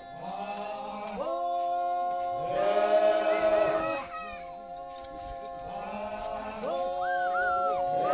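Group of voices singing or chanting together without instruments, holding long notes in phrases of one to two seconds. Each phrase slides into its note and is followed by a short pause.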